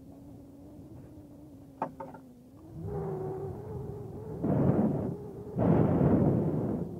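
Wind buffeting the microphone, building up in the second half with two strong gusts, over a steady low hum. A couple of sharp clicks about two seconds in.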